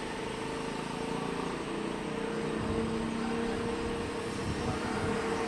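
Jet airliner's engines running as it rolls along the runway: a steady engine noise with a held whine, and a deeper rumble that swells about halfway through.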